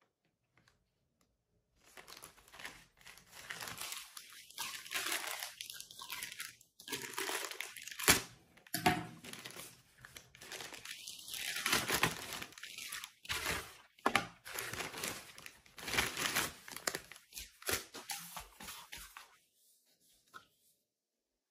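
Plastic courier mailer being ripped open and crinkled by hand: a run of rustling and tearing with one sharp crack about eight seconds in. It starts about two seconds in and stops a couple of seconds before the end.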